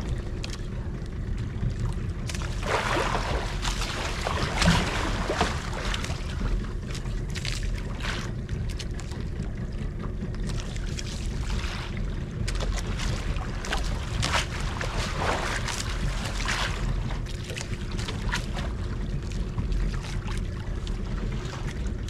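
A boat's engine running steadily under way, with irregular swells of wind and water noise coming and going over it.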